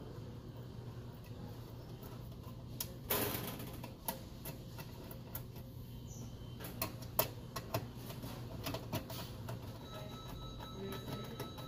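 Light irregular clicks and ticks of a screwdriver driving screws to fasten a metal probe manifold plate into the ceiling of an Alto-Shaam oven cavity. A brief louder burst of noise comes about three seconds in, over a steady low hum.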